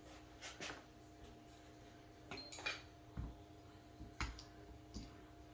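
Small metal parts of an AR-15-type lower receiver being handled and fitted by hand, scattered sharp clicks with a few dull knocks on the bench.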